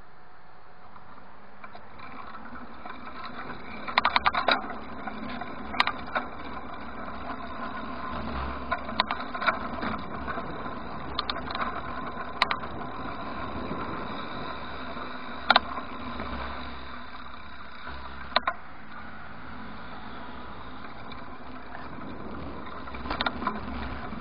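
Bicycle riding along a street, heard through a handlebar-mounted camera: a steady rolling road noise with about a dozen sharp rattles and knocks from the bike and its mount jolting over bumps.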